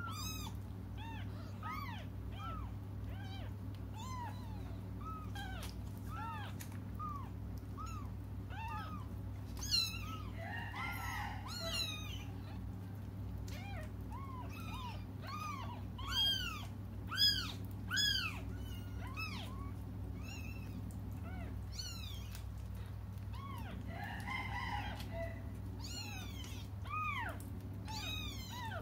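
Very young kittens mewing and crying: many short, high, thin cries from several kittens in quick succession, over a steady low hum.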